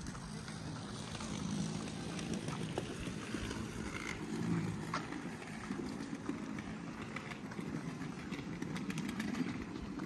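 Outdoor ambience: a steady low rumble with a few faint clicks.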